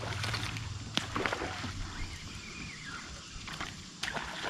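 Splashing of a hooked juvenile tarpon thrashing at the water's surface: a few sharp splashes, about a second in and again near the end, over quieter water noise.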